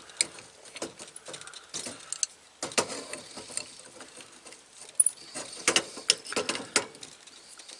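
Metal spanners clinking and rattling as they are sorted through, with clusters of sharp clicks and knocks.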